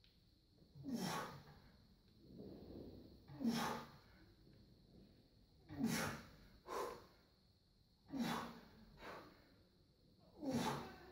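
A weightlifter's short, forceful breaths and snorts of effort during repeated barbell lifts, about eight in all, one every one to two seconds. A faint steady high whine runs underneath.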